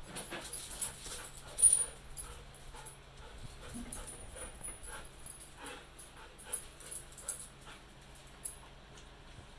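Dogs at play, whining and panting, with one louder outburst about one and a half seconds in.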